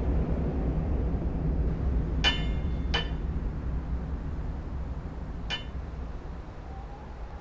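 Three light clinks with a short ringing, the second under a second after the first and the third about two and a half seconds later, over a low steady rumble that slowly fades.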